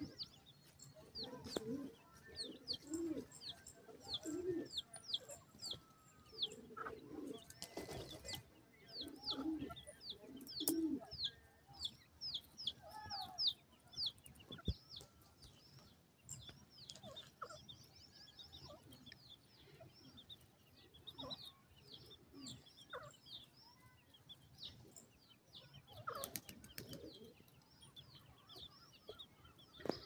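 Grey francolin chicks peeping: a steady run of short, high, falling peeps, several a second, with soft low clucks mixed in for roughly the first ten seconds and a short noisy burst about eight seconds in.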